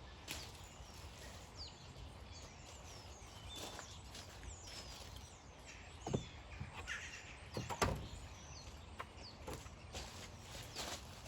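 Steady outdoor background noise with scattered faint bird chirps, and a few sharp knocks, the loudest about six and eight seconds in.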